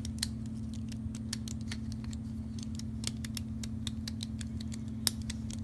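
Freshly oiled Atlas BT10 bipod leg being worked by hand: light, irregular metallic clicks and ticks from the leg mechanism, over a steady low hum.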